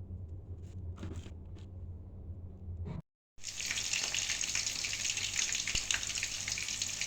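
Breaded chicken katsu deep-frying in hot oil: a steady, dense sizzle full of small crackles, starting after a cut about three seconds in. Before it, only a low hum with a few faint clicks.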